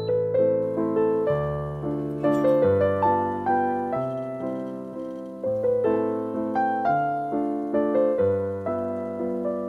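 Background piano music: a gentle melody of struck notes with chords beneath, each note dying away, a few notes a second.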